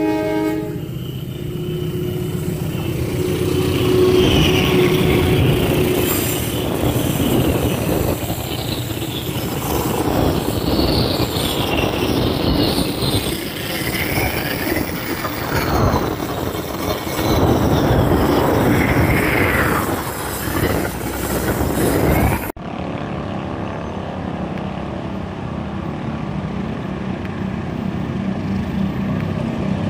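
Diesel-hauled passenger train passing close at speed, its coaches clattering over the rails with wheels squealing in rising and falling whines. About two-thirds of the way through, the sound cuts to a GE CC 203 diesel-electric locomotive approaching from a distance, its engine running as a steady low drone under heavy throttle.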